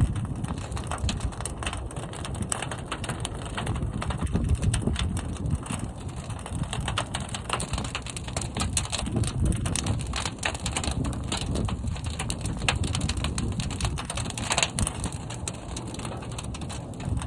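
Fire burning inside a large kiln: a steady low rumble of flame with many sharp crackles and pops throughout.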